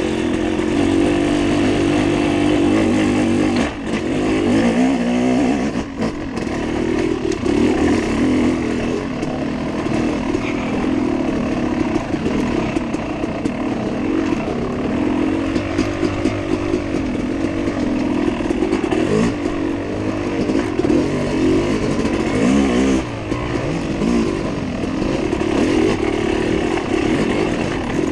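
Off-road dirt bike engine revving up and down as it is ridden, the pitch rising and falling without a break, with short drops in revs about four and six seconds in.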